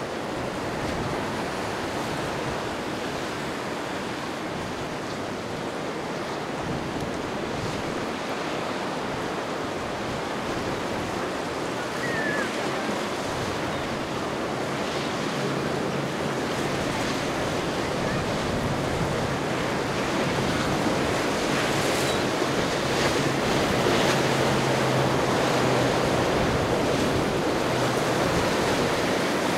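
Waves and surf with wind buffeting the microphone. A low, steady boat-engine hum comes in about halfway through and fades near the end.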